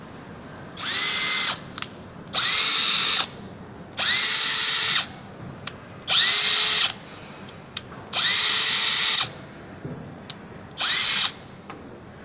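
TECCPO TDHD01P 18V cordless drill run with no load in six short trigger pulls, each a whine that rises in pitch as the motor spins up and then holds steady until released. Small clicks sound in the gaps between runs.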